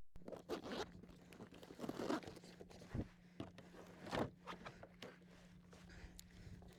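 Irregular rustling, clicks and knocks of gear being handled close to the microphone, the loudest knocks about three and four seconds in, over a steady low hum.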